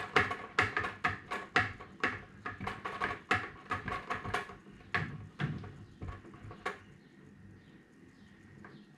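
A long spoon stirring cider must in a glass carboy, knocking against the glass in a quick run of clinks, about three a second, as the pitched yeast is mixed in. The clinks stop about seven seconds in.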